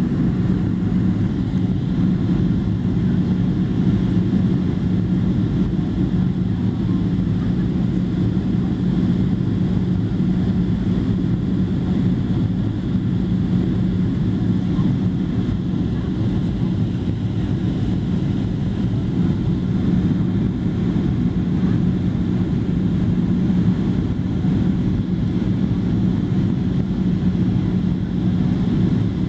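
Cabin noise of a Boeing 737-700 on descent toward landing, heard inside the cabin by the wing: the CFM56 turbofan engines and the airflow over the fuselage make a steady, loud low drone with one held humming tone.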